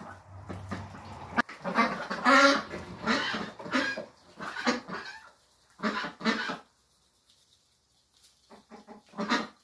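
Domestic ducks quacking as they feed: a busy run of short, loud quacks in the first half, two more around six seconds in, and a few near the end after a pause.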